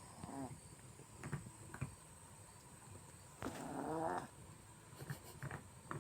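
Chihuahua snoring: a short snore at the very start, then a longer, louder rasping snore about three and a half seconds in, with a few short soft clicks or snuffles between.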